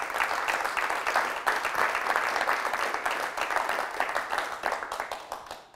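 Audience applauding: many hands clapping in a dense, steady patter that fades near the end.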